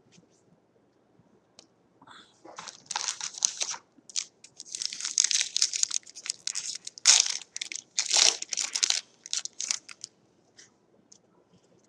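Foil trading-card pack wrapper being torn open and crinkled by hand, in irregular rustling bursts from about two seconds in until about ten seconds in.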